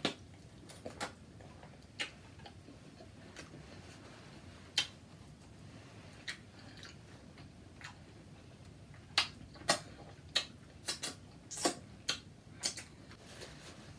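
Close-miked eating sounds: scattered sharp mouth clicks and smacks while eating seafood, sparse at first and coming in a quick cluster near the end.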